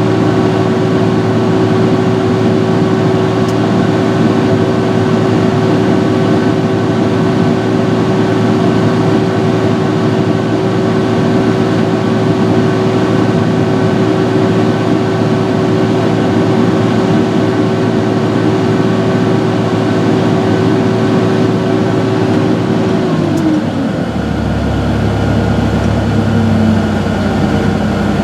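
John Deere 6068 six-cylinder diesel in a Fabtek 153 harvester running hard with a steady whine, just after its thermostat was replaced. About 23 seconds in the pitch drops as the revs come down, and a deeper rumble takes over; the lower whine falls away again near the end.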